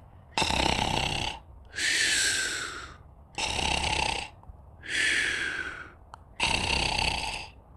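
Snoring: three rough snores, each followed by a breathy hiss, in a slow, even rhythm about three seconds per cycle.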